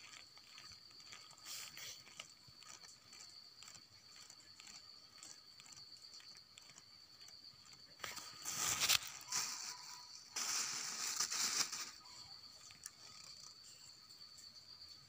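Insects buzzing steadily with a high, unbroken drone. About eight seconds in, and again from about ten to twelve seconds, there are loud bursts of rustling and crunching of leaves and brush close to the microphone.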